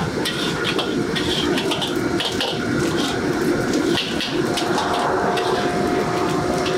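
Wok burner running with a steady rush of flame while a metal wok spatula scrapes and clinks against the wok in irregular strokes, stir-frying food.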